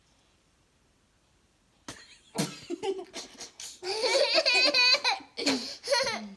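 A young child laughing in several high-pitched bursts, starting about two seconds in.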